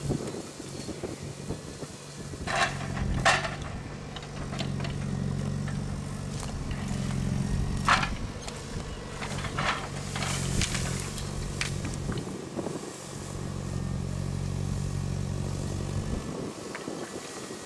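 Ponsse Wisent forwarder's diesel engine working under load as its crane loads brushwood, picking up about two seconds in and dropping away a second or two before the end. Several sharp cracks of branches snapping in the grapple stand out over it.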